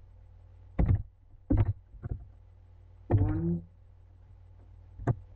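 A few separate keystrokes on a computer keyboard, sharp and spaced apart, over a low steady hum. One short spoken word comes about three seconds in.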